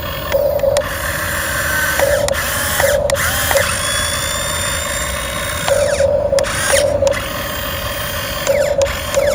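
Radio-controlled model excavator's motors and gears whirring, with short bursts recurring at irregular intervals over a steady mechanical noise.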